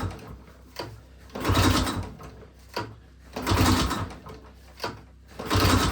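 Recoil pull-starter on a 1951 Moto-Ski's Kohler engine yanked three times, roughly every two seconds, with a short click as the cord rewinds between pulls. The engine turns over but does not catch, with the choke on and fuel from the gravity-fed tank not yet reaching the carburetor.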